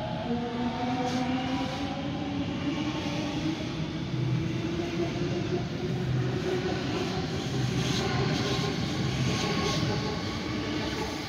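Sydney Trains Waratah electric multiple unit running past at close range: wheels rumbling on the rails under a traction-motor whine that rises slowly in pitch.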